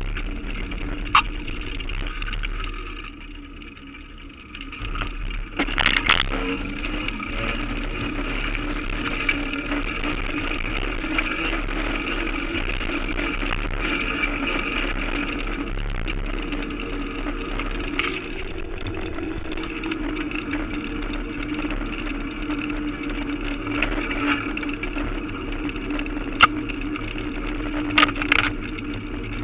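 Ride noise picked up by a handlebar-mounted camera on city streets: a steady engine-like drone with wind rush. The drone dips for a couple of seconds, then a loud brief rush comes about six seconds in. A few sharp knocks from the mount over bumps come near the start and twice near the end.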